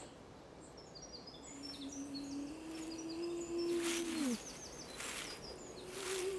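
Outdoor birdsong: many short, high chirps and trills. Under it a low tone from background music is held and slides downward about four seconds in.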